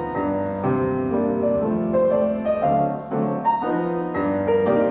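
Grand piano being played, with single notes and chords following one another.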